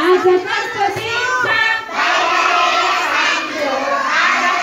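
A large group of children singing together. About two seconds in, their voices thicken into a dense mix of many voices at once.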